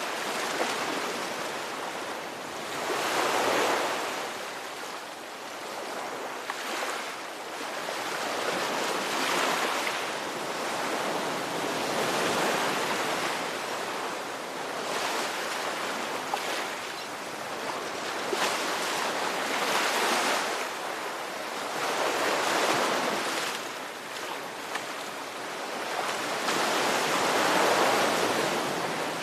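Ocean surf: waves washing in one after another, each swelling to a peak and fading over a few seconds, with about eight surges.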